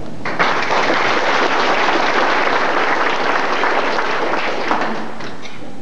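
Audience applauding, starting a moment in and dying away near the end.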